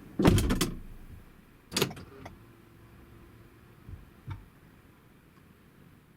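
Car door shutting with a heavy thump, followed by a sharper knock and a few lighter clicks and knocks.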